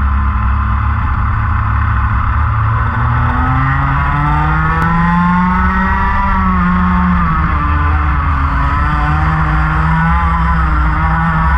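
Racing kart engine at race pace, its note climbing through the first half, dropping briefly about seven seconds in, then climbing again, with other karts' engines running close by.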